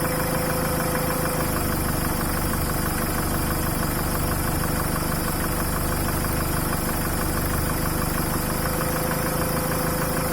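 Mitsubishi 4D56T four-cylinder turbodiesel running with a knock while the fourth cylinder's injector line is loosened to cut it out, a test to find which cylinder knocks. The engine note changes about 1.5 s in and returns near 8.5 s.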